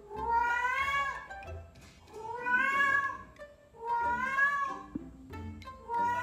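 A cat meowing repeatedly: about four long, drawn-out meows, each around a second long, rising in pitch then bending down at the end, with short pauses between them.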